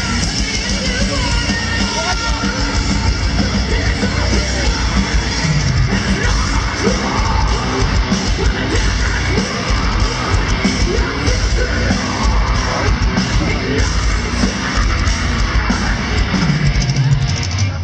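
Live heavy metal band playing loud through a festival PA, heard from inside the crowd, with shouts and yells from people nearby mixed in.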